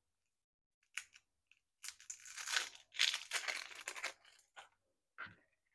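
Dry, papery outer skin being peeled off a halved onion by hand, crinkling and tearing for a couple of seconds in the middle, with a few smaller rustles near the end.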